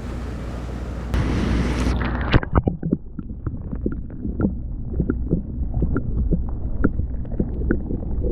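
Steady rush of creek water with wind on the microphone, giving way about two seconds in to a string of irregular light knocks and splashes.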